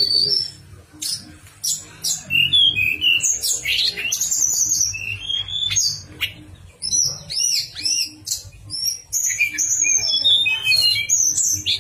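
Tledekan gunung singing a fast, varied song of whistles and chirps, including flute-like notes. A steady low hum runs underneath.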